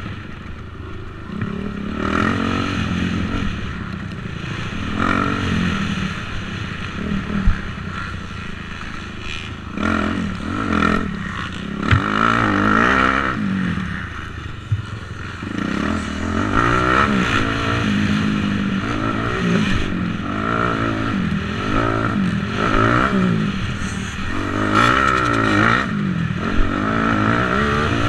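Motocross bike engine revving up and falling back again and again as it accelerates and backs off around the track, with wind noise and a couple of sharp knocks.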